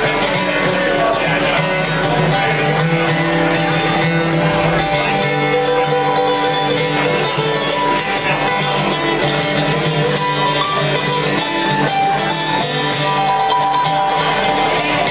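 Bluegrass band playing live: banjo, acoustic guitar, mandolin, fiddle and upright bass in an instrumental passage, with no singing.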